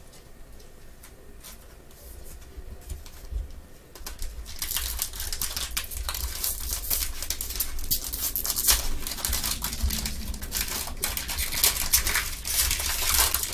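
Foil wrapper of a Donruss basketball card pack crinkling and crackling as gloved hands tear it open, dense and continuous from about four seconds in.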